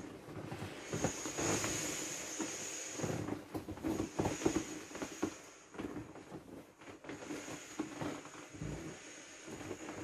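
Air hissing out of an inflatable vinyl parrot swim ring as it is squeezed to deflate it, with the vinyl creaking and crackling under the squeezing. The hiss comes and goes in spells and stops at the end.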